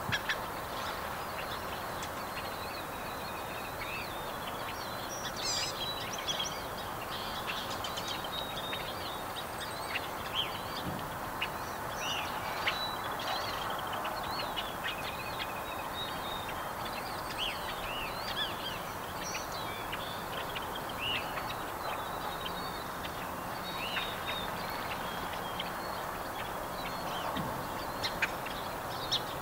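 Several birds chirping and calling in short, scattered phrases over a steady background hiss.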